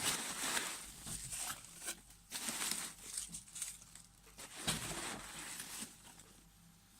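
A parcel's packing material being unwrapped by hand: irregular rustling and crinkling, with a soft bump about two-thirds of the way in.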